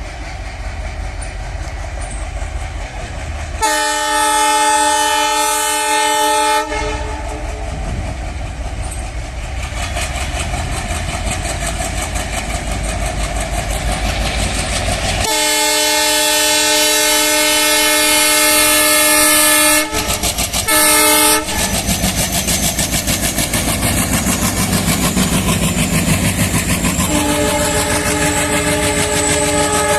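WDM3A diesel locomotive drawing nearer, its engine rumble and wheel noise growing steadily louder. It sounds its multi-note horn in long blasts: about three seconds long some four seconds in, a longer blast about fifteen seconds in, a short toot just after it, and another starting near the end. In the latter part the wheels beat with an even clickety-clack.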